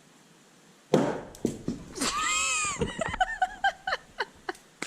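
A sharp knock about a second in as a thrown magnet-fishing magnet misses the opening and strikes the covered bridge's wooden frame. A high cry and a run of short laughs follow.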